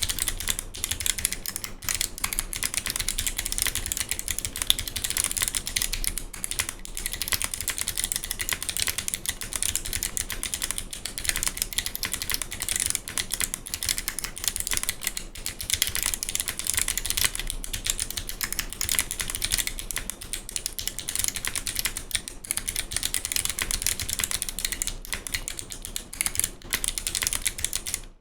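Fast, continuous typing on an NYM96 mechanical keyboard with Kailh Box Navy clicky switches and GMK keycaps: a dense run of thick, sharp clicks, broken only by a few brief pauses.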